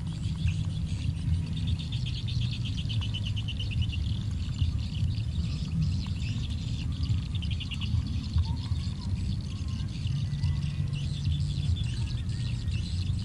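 Background chirping in rapid high trills, coming and going twice, over a steady low hum.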